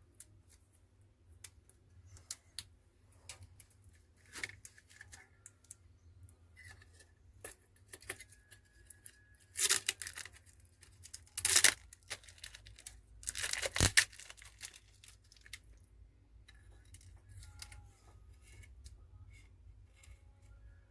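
Plastic film being peeled or torn in three short tearing bursts about ten, eleven and a half, and thirteen and a half seconds in, among small clicks and taps of handling phone parts.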